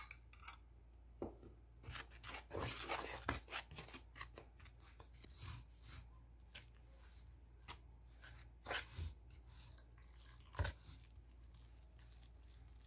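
Metal spoon stirring flour, oil and beaten egg in a plastic mixing bowl: soft scraping and crunching with scattered clicks of the spoon against the bowl. It is busiest about two to four seconds in, with a couple of sharper knocks later on.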